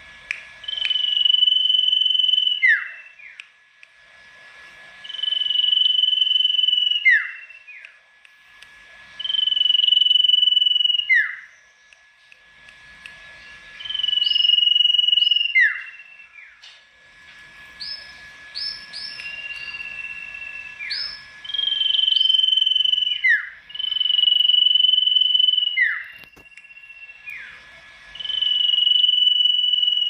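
Sirtu songbird singing loudly in repeated phrases every few seconds, each a held high whistle that ends in a quick falling slur. About halfway through it gives a faster run of short rising notes instead.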